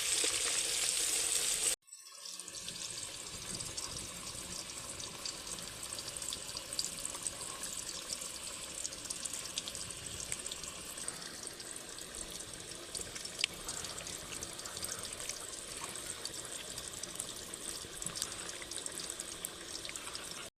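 Cut potatoes frying in hot oil in a kadai, a steady sizzle with small crackles. It drops out abruptly about two seconds in and comes back quieter for the rest.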